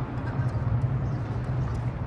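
Steady low hum of road traffic, with a few faint short clicks over it.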